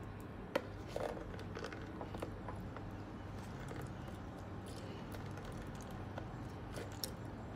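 Small handling sounds of limes being squeezed by hand over a plastic bowl: a sharp click about half a second in, then scattered soft crackles and ticks, with one more tick near the end, over a steady low hum.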